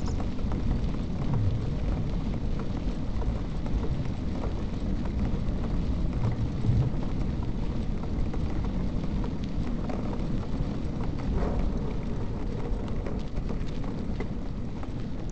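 Bicycle riding over a cracked paved road: a steady low rumble of tyres and wind, with many small clicks and rattles from the bike going over the rough surface.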